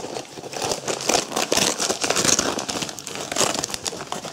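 Cardboard and paper of an advent calendar crinkling and tearing as a door is pried open by hand, with a rapid run of small crackles.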